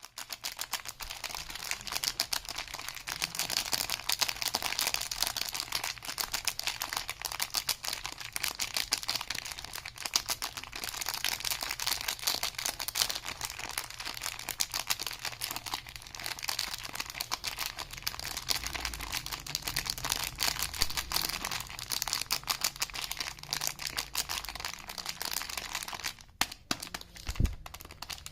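Soap packaging being unwrapped by hand: continuous crinkling and crackling of the wrappers, with a short break and a low thump near the end.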